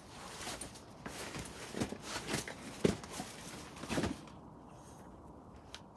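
Irregular scuffs, rustles and soft thumps from a climber on a boulder problem and spotters shifting a crash pad beneath him. The loudest knocks come about three and four seconds in, then it goes quieter.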